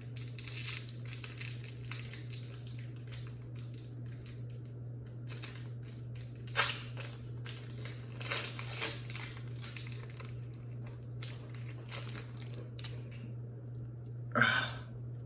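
Foil booster-pack wrapper crinkling and being torn open, in irregular rustles and crackles, over a steady low hum.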